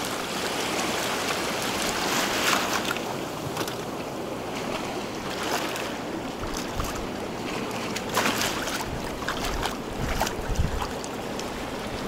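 Small waves washing in and draining back over a shallow, muddy shore: a steady hiss of moving water that surges louder now and then. A few low thumps come in the second half.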